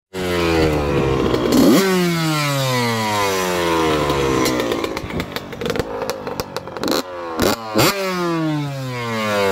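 Yamaha two-stroke dirt bike with an FMF expansion chamber, revved by hand. A sharp throttle blip comes about two seconds in, and the revs fall away slowly; a crackly stretch follows, then two quick blips near the end, the revs sinking again after each.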